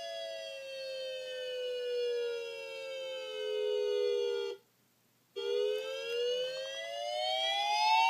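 Electronic Federal Signal dual-tone wail siren sound played from an iPad through a small speaker with a plastic cup taped on as a horn. Two close pitches glide slowly down together, cut out for under a second about four and a half seconds in, then glide back up.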